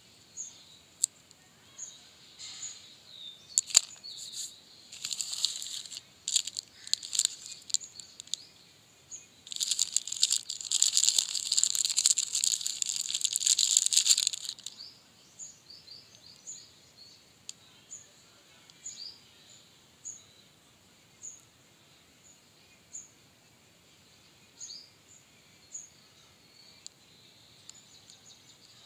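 Crinkly plastic chocolate-bar wrapper, a Snickers wrapper, handled and crumpled in the hands: scattered crackles and clicks at first, then about five seconds of dense crinkling in the middle that stops suddenly.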